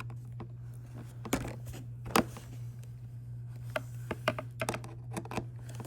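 Light, irregular clicks and taps of a screwdriver and screws being worked into the EDF fan housing of a foam RC jet, with one sharper click about two seconds in and a quick run of clicks near the end. A steady low hum underneath.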